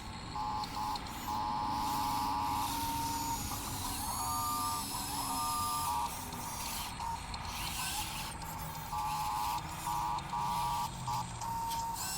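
Small electric motors of a radio-controlled construction model whining in short start-stop bursts, a mechanical whirr that starts and stops again and again as the controls are worked.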